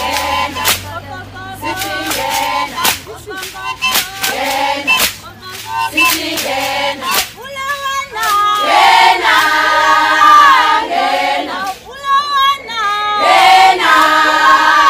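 A group of voices singing together in chorus, with sharp percussive hits mostly in the first half. The singing grows louder and fuller about eight seconds in.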